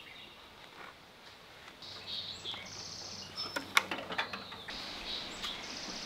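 Outdoor quiet with birds chirping, and a few sharp light clicks in the middle from hand work on metal fittings.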